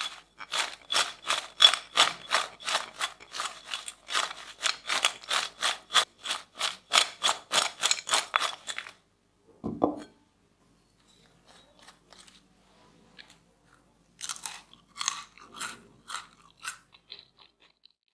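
Crisp fried waffle-cut potato chips crunching and rattling against each other as they are tossed by hand in a glass bowl, in quick strokes about three or four a second for roughly nine seconds. A dull knock follows, then faint ticks and a few more short crunches near the end.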